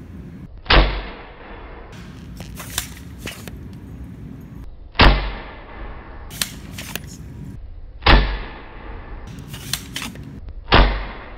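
Modified Nerf blaster firing ACC Gen3 short darts through a 3D-printed rifled muzzle attachment: four sharp shots, a few seconds apart. Lighter clicks come between the shots.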